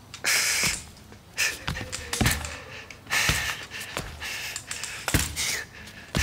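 A man breathing hard in gasps as he walks on forearm crutches, effort of a patient re-learning to walk, with the crutch tips knocking on the floor every second or two.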